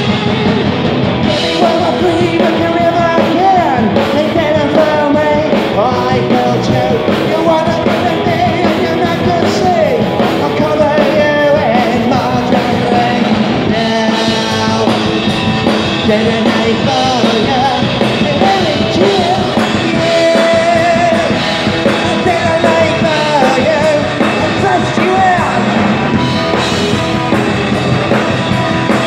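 Live punk rock band playing loudly: electric guitar, electric bass and drum kit, with a lead singer singing over them.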